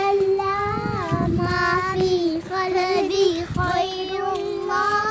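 Young girls singing a rhyme together in a steady, drawn-out chanting melody.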